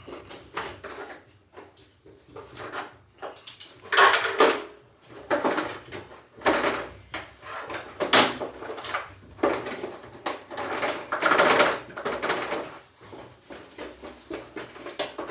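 Irregular clattering and scraping of metal parts being handled by hand, loudest in a few bursts about four, eight and eleven seconds in.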